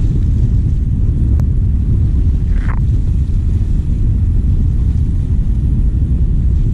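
Wind buffeting the microphone at the water's edge, a steady low rumble, with a sharp click about a second and a half in and a brief higher sound soon after.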